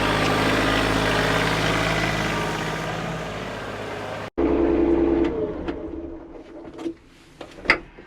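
The engine of a piece of compact equipment running steadily, cut off abruptly about four seconds in. A shorter engine-like sound with a strong steady tone follows and fades. Then come a few sharp clicks or knocks, the loudest near the end.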